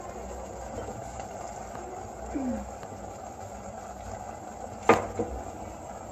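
Steady hiss of a stainless steel pot of chicken cooking on a gas burner, with a sharp metallic clink about five seconds in and a fainter one just after.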